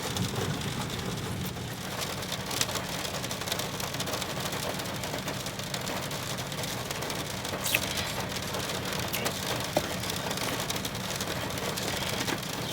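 Rain falling steadily, with scattered sharp hits of single drops a few times through it.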